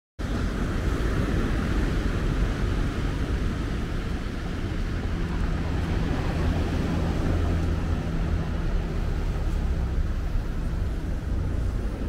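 Mediterranean surf washing onto a pebble beach, a steady rush of waves, with a low engine drone underneath that is strongest midway.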